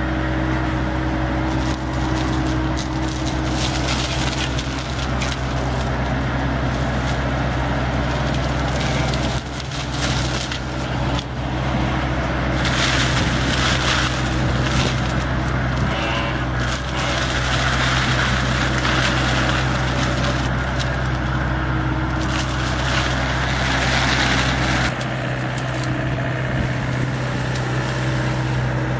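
AFE RDM34 Compact disc mulcher on a John Deere compact excavator, spinning and shredding brush, a dense crackling, chewing noise over the excavator's steady diesel engine. The shredding briefly eases about ten seconds in, then picks up again.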